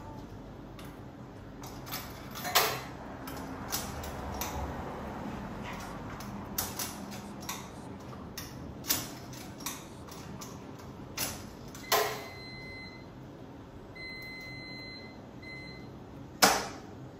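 Coins being fed into the coin slot of a coin-operated laundromat washing machine: a run of sharp clicks and metal clinks as coins drop through and are rejected, until one is finally accepted. Short electronic beeps come from the machine's panel in the last third.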